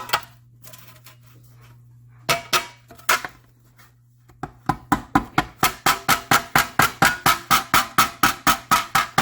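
Hammer tapping on a dolly against metal body trim to raise a low spot, in sharp ringing strikes. A few spaced blows come first, then a quick even run of about five taps a second from about halfway on.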